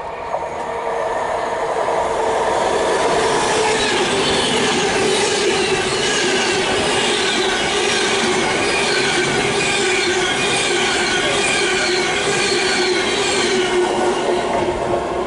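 Class 390 Pendolino electric train running through the station at speed without stopping. It builds up over the first couple of seconds, then stays loud as a steady rush of wheels on rail, with several high, steady squealing tones from the wheels on the curved track. It falls away right at the end.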